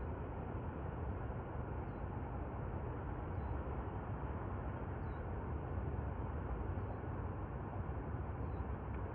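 Steady outdoor background noise: a low rumble with a hiss over it, unchanging, with no distinct calls or knocks.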